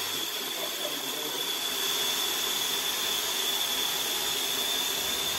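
A steady hiss with a thin, high whine held throughout, like a running machine or appliance.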